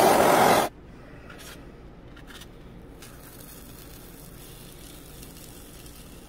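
Small handheld gas torch hissing steadily as its flame heats a knife blade, then cutting off sharply under a second in. After it, only faint light scraping as the hot blade cuts through cured expanding spray foam.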